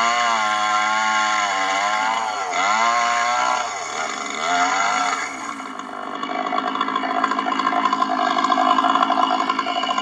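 Stihl 660 two-stroke chainsaw with a 36-inch bar, mounted in a chainsaw mill, running hard through a log, its engine pitch wavering under the load. About five seconds in it drops off, then picks up again with a rapid pulsing that grows louder near the end.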